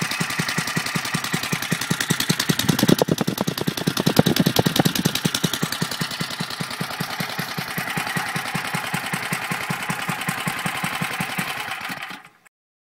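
Freshly rebuilt Kawasaki FA210 single-cylinder four-stroke 5 hp engine running with an even, steady beat of firing pulses, louder for about two seconds starting about three seconds in. The sound cuts off suddenly near the end.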